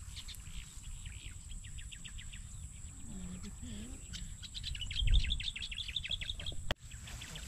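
Small bird chirping in quick runs of short high notes, busiest in the middle of the stretch, over a steady high-pitched insect drone. A low rumble sits underneath, with a loud low thump about five seconds in.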